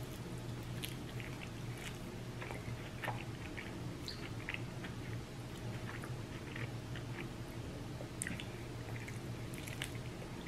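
A person chewing food close to the microphone, with scattered wet smacks and clicks of the mouth over a steady low hum.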